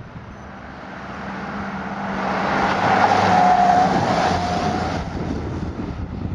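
Ambulance van driving past at speed. The engine and tyre noise grows, peaks as it passes about three to four seconds in, then fades as it drives away.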